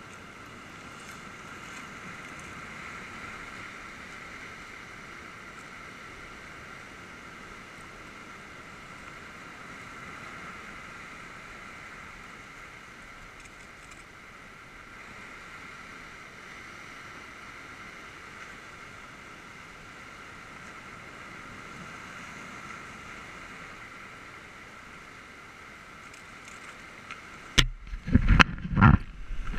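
Steady roar of sea surf breaking on rocks. Near the end, loud irregular thumps and wind rumble on the microphone as the camera is moved.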